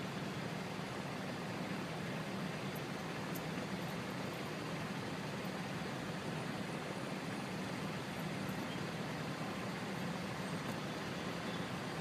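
Steady city-centre road traffic: an even, unbroken hum of engines and tyres with no single vehicle standing out.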